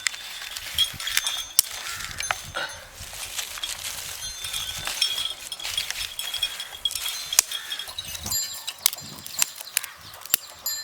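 Outdoor rural ambience: many short high-pitched animal chirps and calls, with scattered sharp clicks and knocks.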